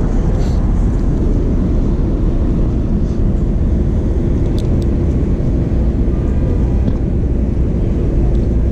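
Steady, loud low rumble of street traffic, with a steady hum joining about six seconds in.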